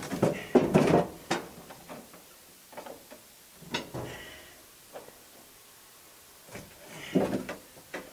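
Wooden planks knocking and clunking as they are handled in a steam locomotive's cab while its fire is lit up, several separate knocks with quiet gaps between, the loudest just under a second in and around seven seconds in.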